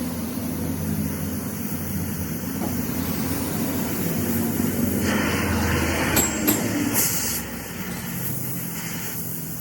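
A motor running steadily with a low hum. A hissing stretch comes about halfway through, with a few sharp clicks near its end.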